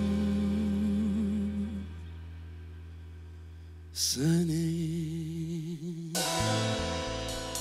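Live funk band in a quiet, held passage: a long sustained bass note under a male lead singer's held, vibrato-laden notes, with a bright cymbal hit about four seconds in. Near the end the full band comes back in with drums and repeated cymbal strokes.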